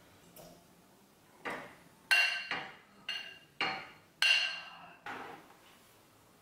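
Metal ladle clinking against a stainless steel pot and a glass bowl while soup is ladled out. There are about seven sharp clinks over five seconds, several of them ringing briefly.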